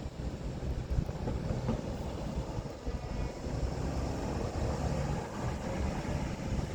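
A long mixed freight train rolling past, its cars' steel wheels giving a steady low rumble on the rails with faint scattered clicks.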